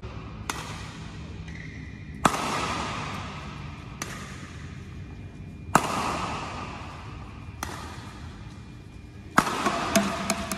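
Badminton shuttlecock struck by a Yonex Arcsaber 11 racquet in a feed-and-smash rally. Sharp hits come about every two seconds, lighter ones alternating with harder smashes, each ringing out in the hall's echo, with two quick hits close together near the end.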